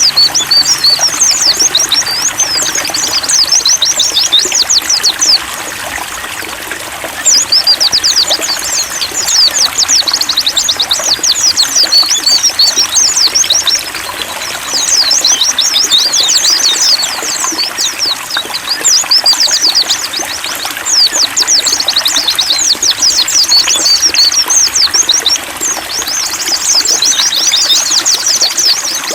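White-eyes (pleci) singing a rapid, high twittering song in runs of several seconds separated by short pauses, over a steady trickle of running water.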